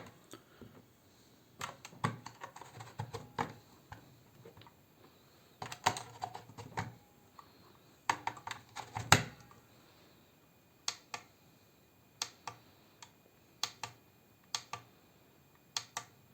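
Irregular small clicks and taps of battery cells and test gear being handled on a bench. They come in short clusters for the first nine seconds or so, then as single sharp clicks about every half second to second.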